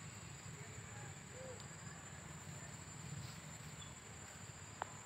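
Quiet outdoor ambience: a steady high insect drone over a low rumble, with a few faint chirps and a single sharp click near the end.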